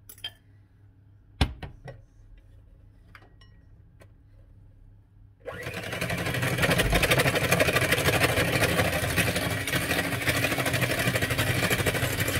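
A few clinks and scrapes of a spoon against a glass bowl, the loudest about a second and a half in. Then, about five and a half seconds in, an electric hand mixer starts and runs steadily, its beaters whirring through banana bread batter in a glass bowl as the mashed bananas are blended in.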